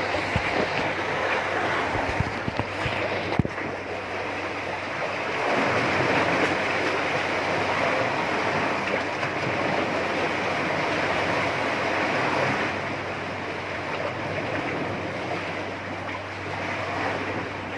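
Seawater washing and surging steadily, swelling louder in the middle and easing toward the end. A few short knocks from the phone being handled in the first few seconds.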